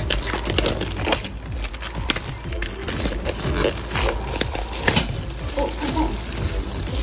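Clear plastic shrink-wrap crinkling in a run of short crackles as it is peeled off a plastic-boxed meal, with background music underneath.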